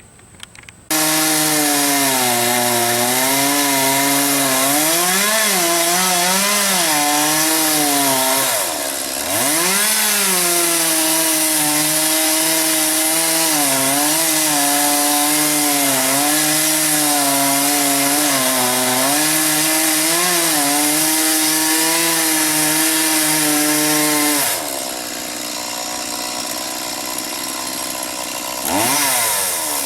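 Two-stroke chainsaw running at high revs, its pitch repeatedly sagging and recovering as it cuts. It comes in suddenly about a second in, eases off briefly around a third of the way through, drops to a lower level for a few seconds near the end, then revs up again.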